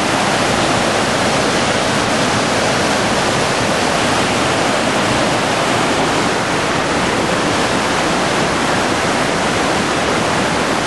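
Waterfall rushing loudly and steadily: an even roar of falling water.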